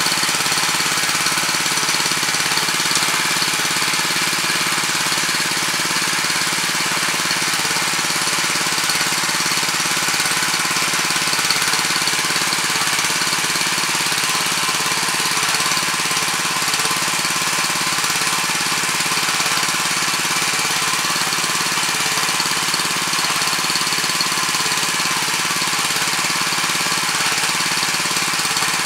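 Weima WM 900 7 hp walk-behind tiller running steadily as its rotary tines churn through hard, compacted soil.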